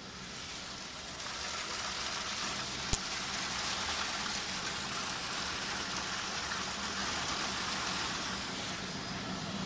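Water gushing from a hose into a steel mixing tank: a steady splashing rush that grows louder about a second in, with one sharp click about three seconds in.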